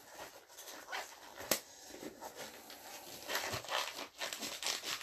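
Faint rustling and scattered clicks of cardboard packaging being handled by gloved hands, with one sharp click about one and a half seconds in and busier rustling near the end.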